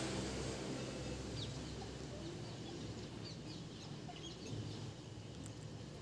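Faint, short, high bird chirps, many in quick succession for a few seconds, over a low steady background rumble.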